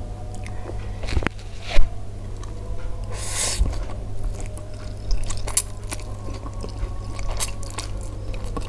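Close-miked eating sounds of instant fried noodles: noodles slurped into the mouth and chewed, with scattered wet clicks, over a steady low hum. A sharp, loud click about two seconds in is the loudest sound.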